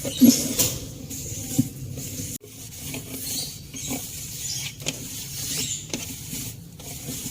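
Rubbing and scrubbing during cleaning, with scattered light knocks and clicks and a brief break about two and a half seconds in.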